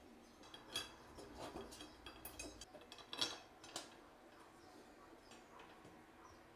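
Faint small metallic clicks and ticks as M6 machine screws are handled and started by hand into a steel furniture frame. There are several clicks in the first four seconds, the loudest a little after three seconds, then it goes quieter.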